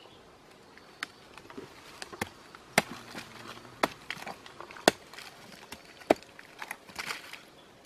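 A stone knocking and scraping on a rotten log as it is broken open, giving irregular sharp knocks and cracks of splitting wood about once a second.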